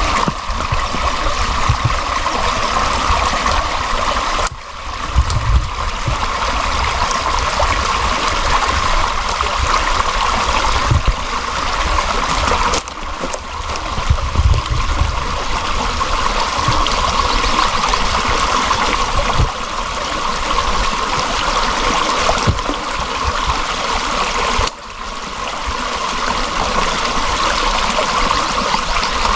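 Steady rushing of running water, like a stream, with a few low thumps. The sound drops abruptly and picks up again three times.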